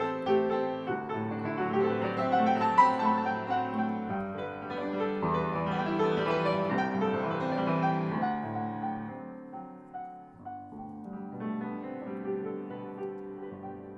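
Antique Steinway & Sons Model A grand piano played, with sustained chords under a melody. The playing grows softer about two thirds of the way through.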